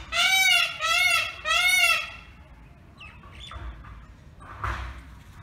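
Indian peafowl calling: three loud, nasal calls in quick succession, each rising then falling in pitch, over the first two seconds.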